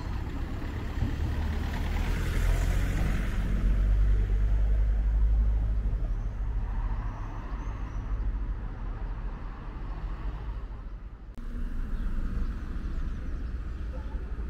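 Road vehicles passing, heard as a low engine and tyre rumble that swells over the first few seconds and then eases off. About eleven seconds in it drops away briefly and then picks up again.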